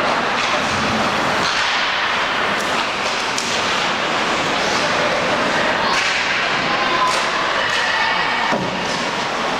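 Ice hockey play in a rink: repeated knocks and thuds of sticks, puck and boards over steady rink noise, with brief shouts from players.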